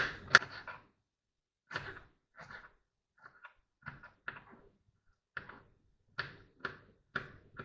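Kitchen knife chopping onion: short sharp knocks in uneven runs, about two a second, with brief pauses between runs.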